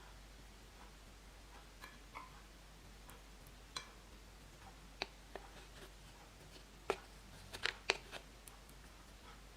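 Slime being squeezed and kneaded by hand, giving scattered sharp clicks and pops, a quick cluster of the loudest about two thirds of the way in.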